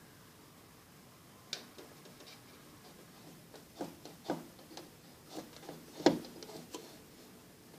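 Irregular light clicks and taps, a dozen or so spread over several seconds, the loudest a sharp knock about six seconds in.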